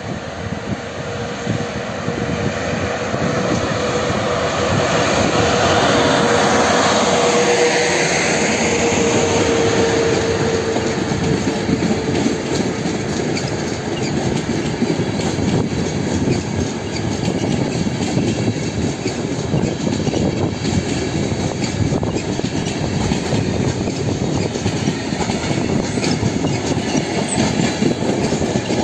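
A ZSSK class 361 electric locomotive passes close by hauling a passenger train. Its steady whine dips slightly in pitch and fades as it goes by, about eight seconds in. The coaches follow, rolling past with a steady clickety-clack of wheels over the rail joints.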